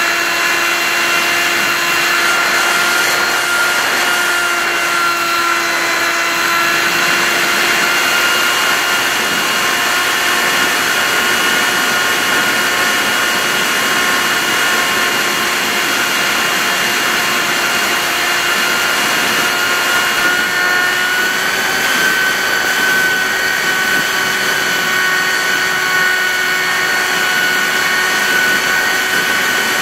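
Model plane's motor and propeller running steadily with a whine, heard from on board over a rush of wind noise. The pitch dips slightly about four seconds in and rises a little around twenty-two seconds.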